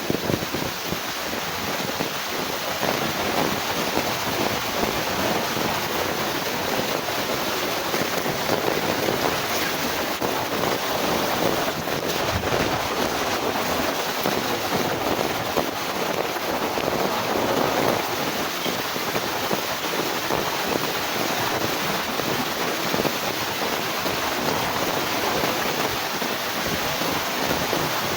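Heavy rain and strong gusting wind, with wind buffeting the microphone, a steady dense rush that swells a little in the middle.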